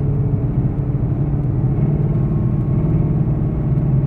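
Car engine running in first gear under light, rising and easing throttle, with a rubbing, clicking noise that follows engine rpm. The owner likens it to a fan rubbing or hitting something.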